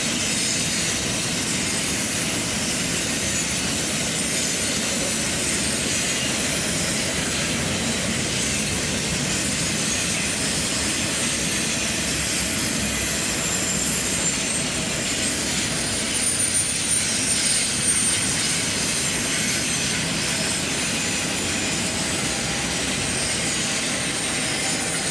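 Double-stack container freight train rolling past on a curve: a steady rumble and rush of wheels on rail. A thin, high wheel squeal rises over it about two-thirds of the way through and again near the end, the wheel flanges grinding against the rail on the curve.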